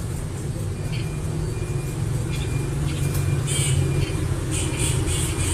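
Short, high bird chirps, a few at a time, over a steady low rumble.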